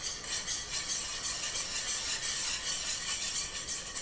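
A metal wire whisk beating flour into melted butter in a frying pan, making a quick, steady scraping and rattling of the wires against the pan as the roux is dissolved.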